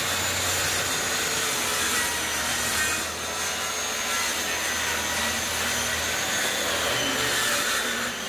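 Handheld electric circular saw running at full speed and cutting along the ends of wooden roof slats: a steady high motor whine with the rasp of the blade through wood.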